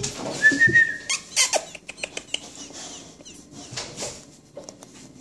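Robin nestling being hand-fed from a syringe: a short high note about half a second in, then a quick run of sharp clicks and squeaks as it takes the food, fading to faint high peeps.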